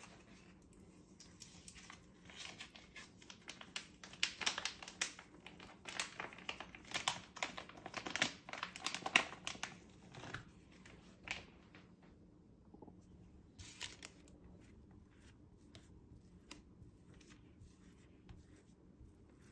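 A pouch of ready-made poppy seed filling crinkles and rustles as a spatula is pressed along it to squeeze the filling out, busiest through the first half. Later come sparser, softer scrapes as the spatula spreads the thick filling over puff pastry.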